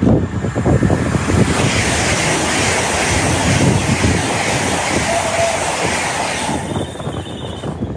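A train passing through the station at speed: a loud rush of wheel and air noise with wind buffeting the microphone. It starts suddenly, and the high hiss dies away near the end.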